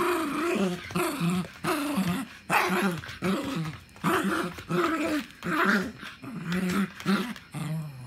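Small mixed-breed dog play-growling in short bursts, about two a second, while mouthing and tussling with a bare foot: playful, not aggressive.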